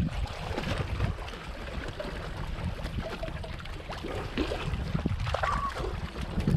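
Water splashing and trickling against the side of a small outrigger boat as a gill net full of bigeye scad is hauled aboard by hand, with scattered small knocks and rustles from the net and fish.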